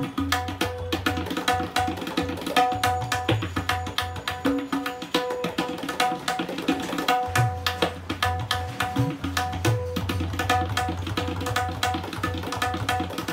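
Handmade tabla pair played solo: fast, dense strokes on the dayan ringing at a fixed tuned pitch, with deep sustained bass notes from the bayan coming in every second or two.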